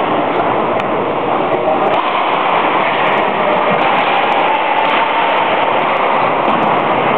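Steady rolling roar of many inline skate wheels on a wooden sports-hall floor, with scattered light clicks.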